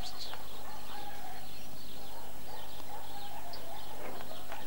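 Small birds chirping in short, scattered high calls over a steady outdoor background hiss.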